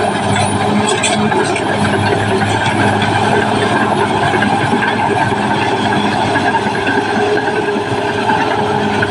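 Caterpillar D6R XL bulldozer's diesel engine running steadily while it works.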